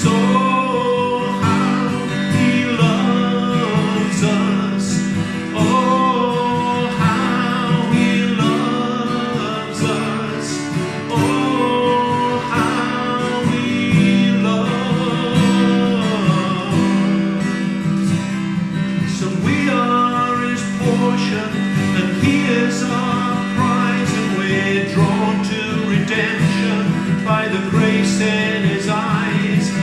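A song played on acoustic guitar with a voice singing.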